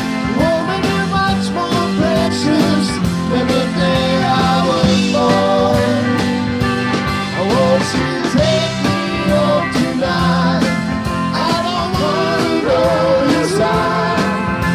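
Country rock band playing a passage without words: a lead melody that bends and wavers in pitch over steady bass and chords, with drums keeping the beat.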